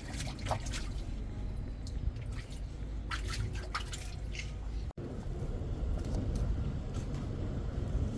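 Water splashing and dripping at a leaking drinking-water pipe, with scattered sharp clicks and knocks over a steady low rumble. The sound drops out for an instant about five seconds in.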